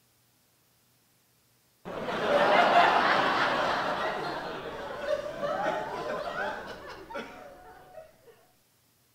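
Laughter from a group, like a laugh track, cutting in abruptly after about two seconds of silence and slowly fading away near the end.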